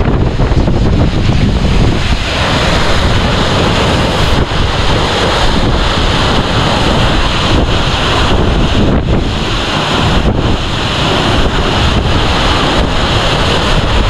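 Steady roar of Gitgit waterfall, a very strong, heavy flow of falling water, with wind buffeting the microphone underneath. The roar grows fuller about two seconds in.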